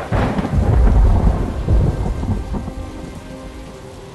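A thunderclap with a sharp crackling onset, then a low rumble that rolls on and fades over about three seconds, over steady falling rain.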